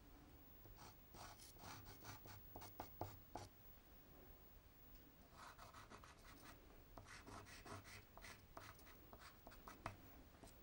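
Faint scratching of a pastel stick drawn across paper in quick short strokes, in two spells with a brief pause in the middle.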